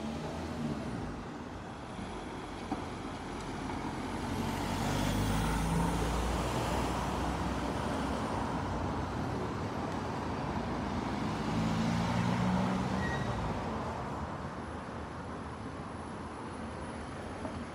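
Street traffic: motor vehicles drive past twice, once about four to eight seconds in and again around eleven to thirteen seconds, each engine swelling and then fading over a steady traffic hum.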